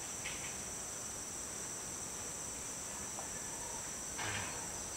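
Steady, high-pitched chorus of insects trilling in the surrounding forest, with a brief soft noise about four seconds in.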